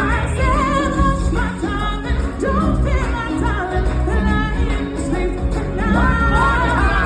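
Stage-musical number: several voices singing with vibrato over a band with a steady low beat.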